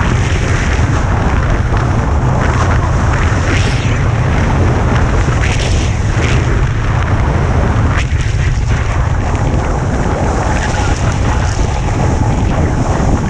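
Heavy wind rumble on the camera's microphone during a fast snowboard descent, with the board's edge hissing over the snow in repeated swells as it turns.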